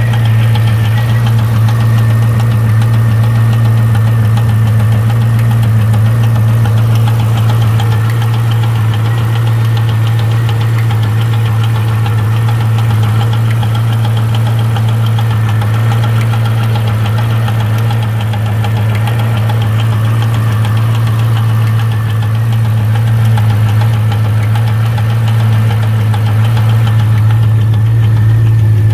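C5 Corvette Z06's LS6 V8 running steadily with a knocking/ticking noise, which the owner says comes in threes and suspects is a valve.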